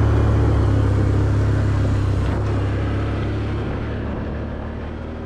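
ATV engine running steadily, its sound fading out gradually.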